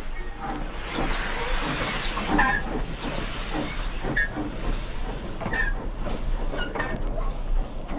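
Model Dapol B4 tank engine's digital sound effects: steam hissing as the locomotive moves slowly, with brief high squeaks here and there.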